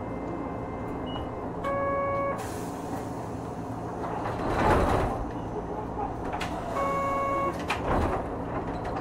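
Inside a Hankai Tramway Type 351 tram at a stop: a steady low hum from the car, two short electronic beeps about five seconds apart, and a rushing hiss that swells and fades in between from the air-operated sliding doors, with a few clicks.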